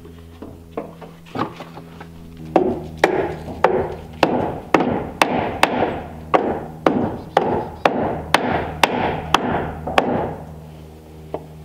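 Hammer driving nails into a plywood sheet on wood framing: a few light taps to start the nails, then about fifteen hard, even blows, roughly two a second, that stop near the end.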